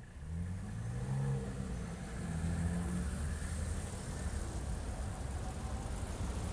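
A motor vehicle's engine running over a steady low rumble, its pitch rising and falling in the first few seconds.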